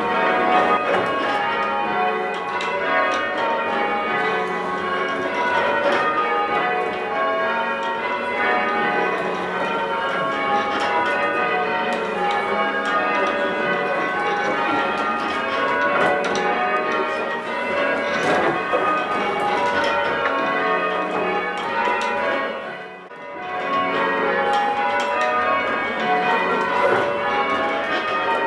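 Large church tower bells being rung in sequence, English-style, one bell striking after another in a continuous stream with their ringing tones overlapping. The ringing dips briefly about four-fifths of the way through.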